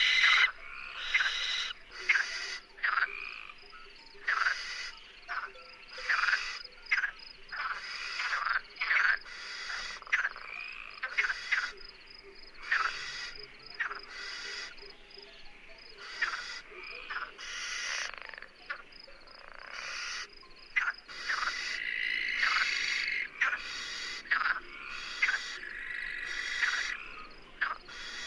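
Recorded domestic animal calls: an irregular run of short, high, downward-sweeping squeaks and chirps, several a second.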